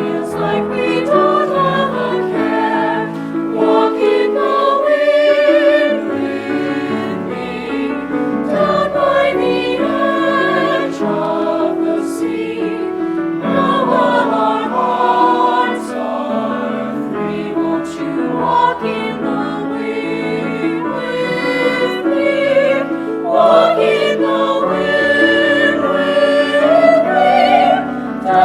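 High school chamber choir singing a song in multi-part harmony.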